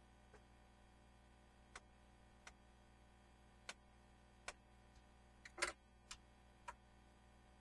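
Faint, scattered sharp clicks and light taps of small hard objects, about eight in all at irregular spacing, the loudest a little past halfway, over near silence.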